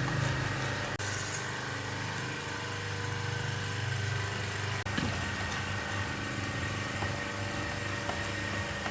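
Pressure washer's motor running steadily, a low hum with a faint high whine, with two sudden short breaks, about a second in and halfway through.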